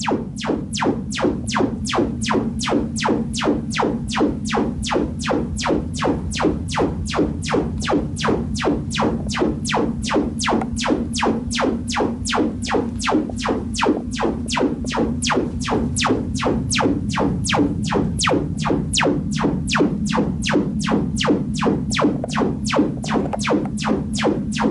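Sonos Trueplay room-tuning test signal played through a stereo pair of IKEA Symfonisk speaker lamps: a steady low hum under sharp, evenly spaced clicks, about three a second.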